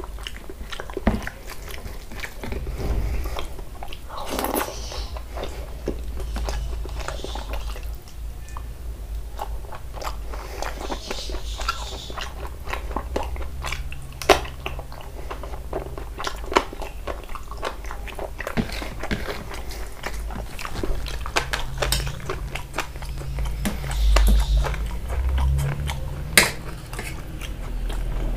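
A person chewing and biting mouthfuls of mutton curry and rice. There are wet mouth smacks and crunches scattered throughout.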